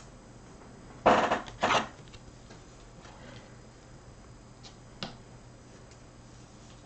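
Foil wrapper of a Topps Chrome trading-card pack torn open in two quick rips, followed by a single light click about five seconds in.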